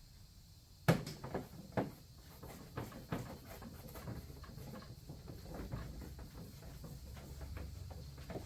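Irregular light knocks and clicks of things being handled, the first and loudest about a second in, followed by smaller scattered taps.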